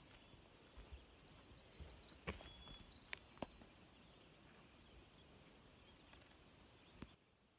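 A small songbird singing a quick run of about a dozen high, downslurred notes that lasts about two seconds, starting about a second in, over otherwise quiet evening woods. A few faint clicks follow.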